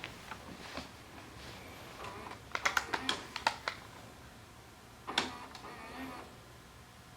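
Sanyo VHR 5420 VCR being operated: a quick run of sharp mechanical clicks, then a single louder clunk a couple of seconds later, typical of buttons and the tape-loading mechanism.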